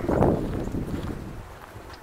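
A Labrador puppy's short barks in the first half-second, fading away, then wind buffeting the microphone.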